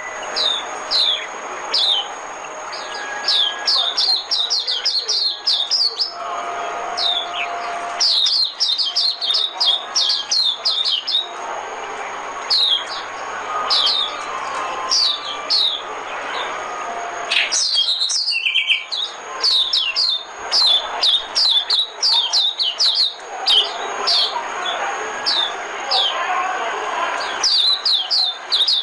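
A white-eye (vành khuyên) singing in quick runs of short, high, downward-slurred chirps, several runs of a few seconds each with short breaks between them, over a steady background murmur.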